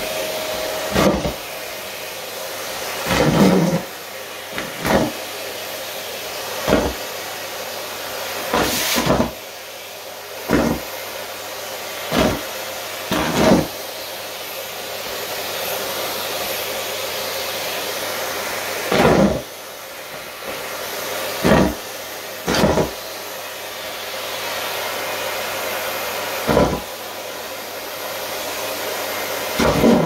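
Canister vacuum cleaner running steadily, with a dozen or so short, loud bursts as scraps of torn shiny leggings fabric are sucked up the wand.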